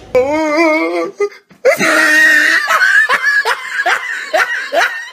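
A loud laughing sound effect laid over the scene. It opens with a short, wavering, drawn-out vocal note, then after a brief gap turns into rhythmic 'ha-ha' laughter at about two to three bursts a second.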